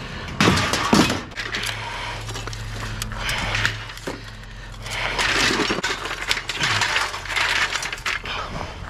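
Junk and scrap metal being picked through and shifted: repeated clanks, clinks and rattles, over a steady low hum.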